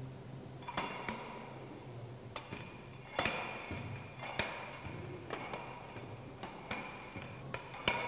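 Steel Proctor compaction rammer dropping onto a soil layer inside a steel mold, blow after blow at about one a second, each strike a dull knock with a short metallic ring: a layer being compacted with a set number of blows during a Proctor test.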